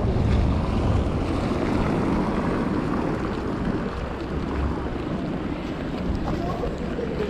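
Heavy rain falling, with wind buffeting the microphone: a steady rushing noise over a low rumble.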